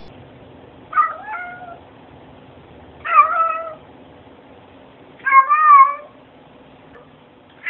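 Black domestic cat meowing three times, about two seconds apart, each meow short with a bending pitch; a fourth meow starts right at the end.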